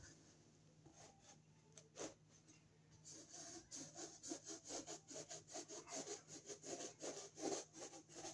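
Knife blade sawing through a drop ceiling tile in quick, faint scraping strokes. A few come in the first three seconds, then a steady run of about five a second.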